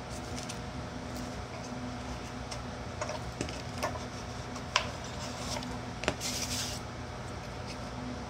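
Light clicks and knocks of metal pipe clamps and wooden blocks being handled and adjusted on a workbench, the sharpest a little under five seconds in, followed shortly after by a brief scrape. A steady low hum runs underneath.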